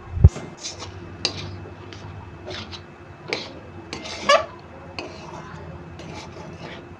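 Metal spatula scraping and clinking against a metal kadai while turning and pressing a thick, crumbly semolina-and-milk dough, in irregular strokes. A dull knock just after the start is the loudest sound, and a longer scrape comes about four seconds in.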